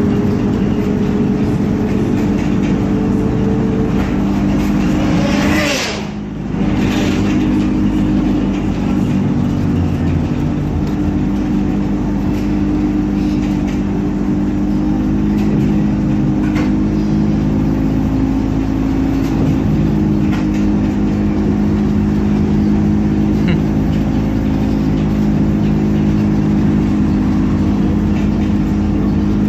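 ZiU-682 trolleybus running: a steady electric hum made of several held tones over road noise. About six seconds in the level briefly dips.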